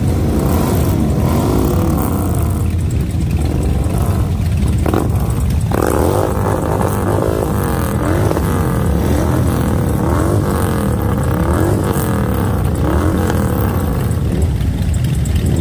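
A group of motorcycles, mostly cruisers, running together at idle and being revved. From about six seconds in, several engines rise and fall in pitch at once over a steady low rumble.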